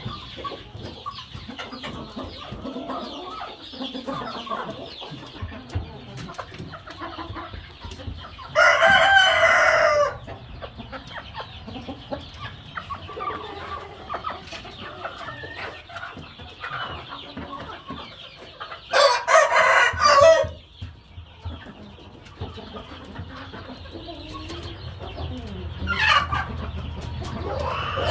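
Roosters crowing twice, each crow about a second and a half long, about a third of the way in and again about two-thirds in, over steady clucking from a flock of chickens.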